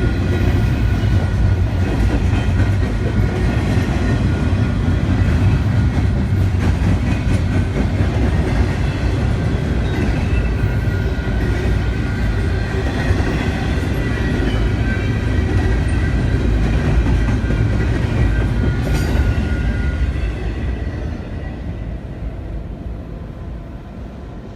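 Canadian Pacific train's cars rolling past, wheels clattering over the rails with a faint high ringing, then fading away over the last few seconds as the end of the train passes.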